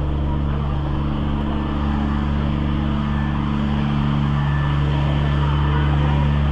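Engine running at a steady speed, a constant even hum.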